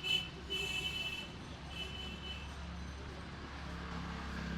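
A vehicle horn honks three short times in the first two and a half seconds, high-pitched, over a steady low rumble of street traffic.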